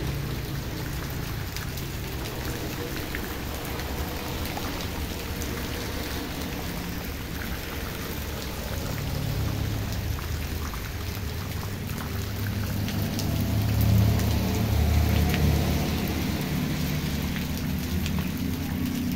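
Heavy rain falling steadily on wet ground: an even hiss of drops. A low rumble swells about halfway through and then eases off.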